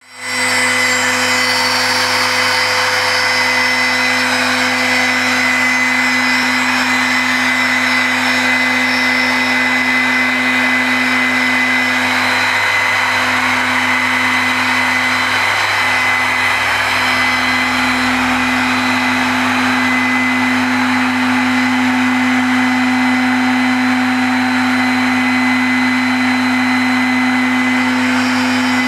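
CNC stone router spindle with a small carving bit grinding into marble under coolant water jets. It runs steadily, a constant motor whine over a hiss of cutting and spraying water.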